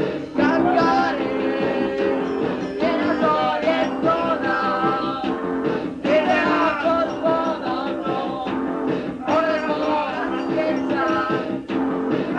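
Punk rock band playing a song, guitar-led with a melodic line over it, recorded lo-fi on a dictaphone so the top end is cut off.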